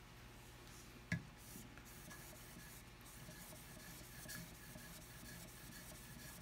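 Faint rubbing of a spokeshave blade stroked back and forth on fine wet sandpaper over a granite slab, honing off the burr. A single sharp click about a second in.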